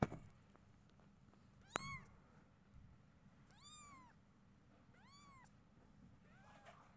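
Eight-day-old kittens mewing: three clear, high, thin mews that rise and fall in pitch, about two seconds apart, then fainter ones near the end. A sharp click at the very start is the loudest sound.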